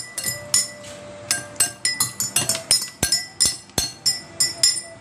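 Spoons and forks clinking and scraping against plates and a bowl, with sharp ringing clinks about three to four times a second.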